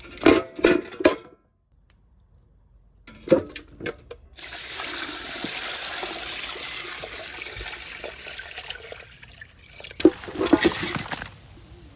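Water running steadily for about five seconds, with short knocks and clatter just before it and again near the end.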